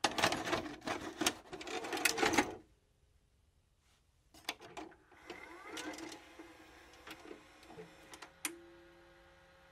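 VHS-style intro sound effect of a videocassette being loaded into a VCR: a dense run of clattering mechanical clicks, a short pause, then more clicks and a brief rising whir as the tape starts playing, settling into a faint steady hum near the end.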